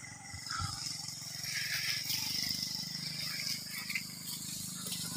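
Motorcycle loaded with a wooden rack of oil palm fruit, its engine running low and steady some way off, under a steady high drone of insects.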